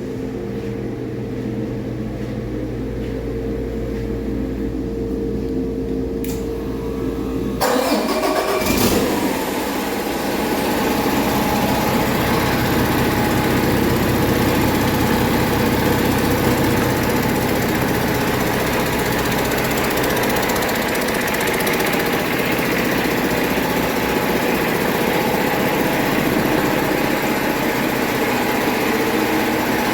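Paccar MX13 inline-six diesel engine running on a test stand. About eight seconds in, its sound changes abruptly to a louder, harsher running that then holds steady.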